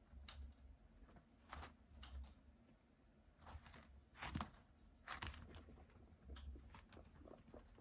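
Faint, scattered rustling and crackling of guinea pigs moving about and nibbling in wood-shaving bedding and hay, with a few soft low thumps.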